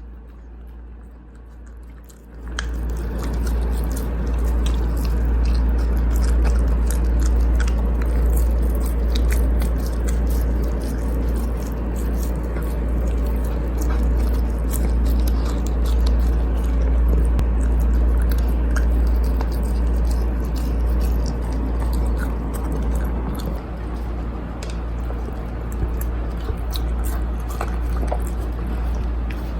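A Spitz dog chewing and biting into a soft dog cake, messy wet mouth sounds that start about two seconds in and go on steadily, over a low steady rumble.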